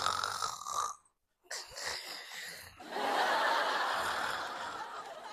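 A person snoring: three long, breathy snores, the last one the longest and loudest.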